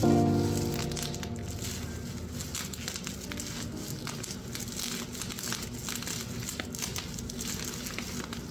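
Crinkling and rustling of something being handled, full of small quick clicks. The last notes of background music ring out at the very start.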